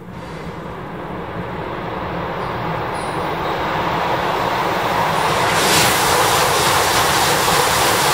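An E5-series Shinkansen train approaching and passing at high speed out of a tunnel. Its noise builds steadily, then is loudest from about six seconds in as the train rushes past, with a strong hiss on top.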